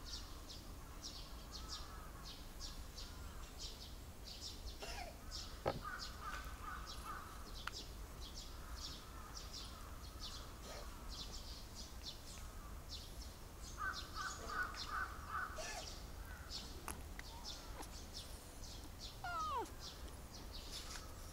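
Outdoor bird calls: quick high chirps repeating a few times a second throughout, with two short runs of lower, repeated calls. Near the end a cat gives one brief, falling meow.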